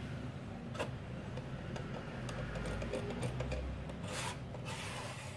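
A stack of metal blades sliding and rubbing in the channel of a blade dispenser as it is loaded and pushed along. There is a sharp click about a second in and two short rasping scrapes near the end.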